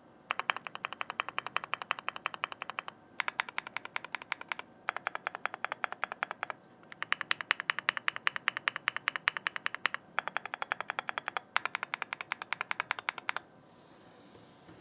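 Fast typing on an Akko YU01 mechanical keyboard with a resin case and PC keycaps, in quick runs broken by short pauses. Each keystroke is a clacky, sharp, clear click. The typing stops about a second and a half before the end.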